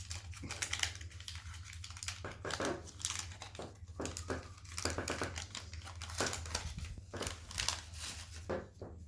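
Wax paper wrapper of a 1987 Topps football card pack crinkling and tearing as it is opened by hand, in a run of irregular crackles.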